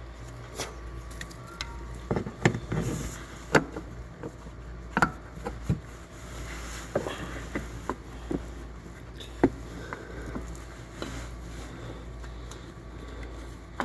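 Irregular clicks and light knocks of hands and parts being handled in a pickup's engine bay as a new spin-on oil filter is fitted, over a low steady hum.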